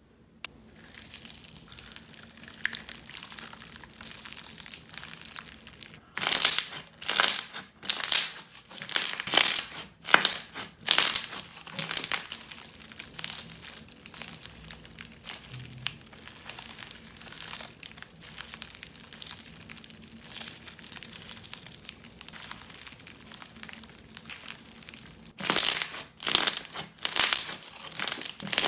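Slime being squished and pressed by hand: a soft continuous crackle, with runs of loud crackling pops about one to two a second, one run starting about six seconds in and another near the end.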